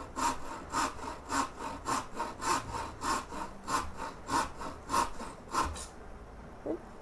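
Back saw cutting a small piece off a wooden scoop blank in quick, even strokes, with light pressure that lets the teeth do the work. The sawing stops about six seconds in.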